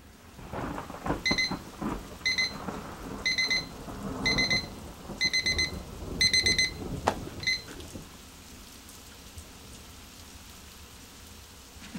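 Electronic alarm clock beeping: clusters of quick, high-pitched beeps repeating about once a second, stopping about seven and a half seconds in. A single sharp click comes just before the beeping ends, and a faint steady hiss runs underneath.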